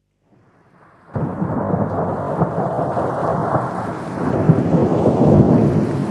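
Wind buffeting the camera's microphone: a loud, even rushing noise with no tones in it, which fades in faintly and then jumps up about a second in.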